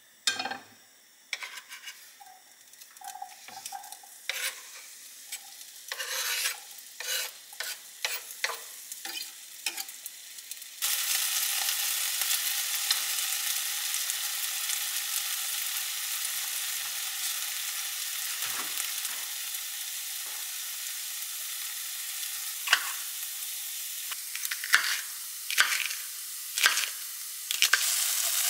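Diced potatoes frying in oil in a nonstick frying pan, stirred with a wooden spoon. At first there are only scattered knocks and scrapes of the spoon on the pan; about eleven seconds in a steady sizzle comes in suddenly and carries on, with a few more spoon knocks near the end.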